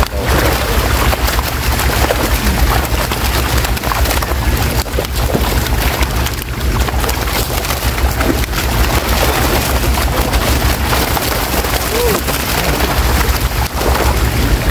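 Many netted fish thrashing and splashing in shallow water crowded inside a seine net, a dense, continuous crackling splash over a steady low rumble.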